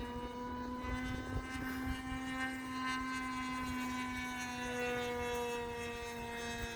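Glow-fuel engine of a radio-controlled P-51 Mustang model airplane droning steadily in flight, its pitch holding nearly level with slight rises and falls as the plane flies around.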